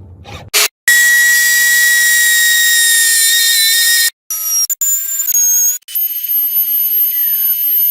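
High-pitched whine and hiss of an electric power tool running at speed, in several abruptly cut segments whose pitch changes between cuts.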